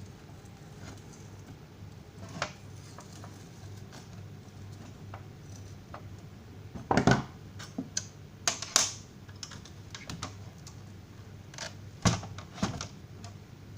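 Irregular clicks and knocks of hard parts being handled while an electric heater element is worked on, with the loudest cluster in the middle and a couple more near the end, over a steady low hum.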